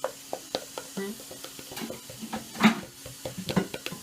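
Kitchen utensil clicking and scraping against a mixing bowl in irregular taps, with a louder clatter about two and a half seconds in.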